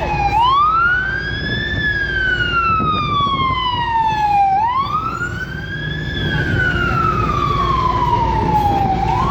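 Emergency vehicle siren wailing. It sweeps quickly up in pitch and then falls slowly, repeating about every four and a half seconds, over a steady low rumble of idling engines and traffic.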